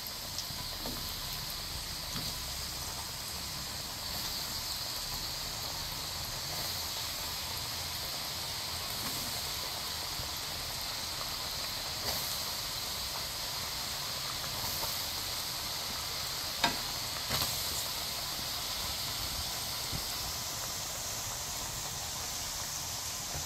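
Batter-coated potato fries deep-frying in hot ghee: a steady sizzle and hiss of bubbling fat, with a few sharp clicks, the loudest about two-thirds of the way through.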